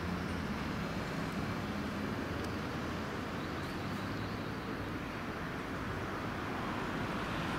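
Steady vehicle noise: diesel engines of fire engines moving slowly out of their station bays, with road noise, swelling slightly near the end.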